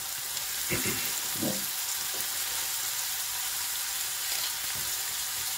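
Freshly added grated red onion sizzling in hot oil in a non-stick kadai as it starts to sauté: a steady frying hiss.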